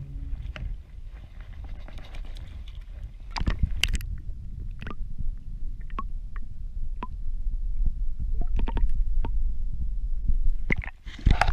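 Muffled low rumble with scattered clicks and knocks of an action camera held underwater in a lake. A louder splashy burst comes near the end.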